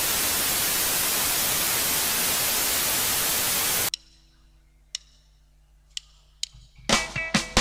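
Loud, steady TV-static hiss used as a transition effect, cutting off suddenly about four seconds in. A faint low hum and a few sharp clicks follow, and near the end a live band starts playing.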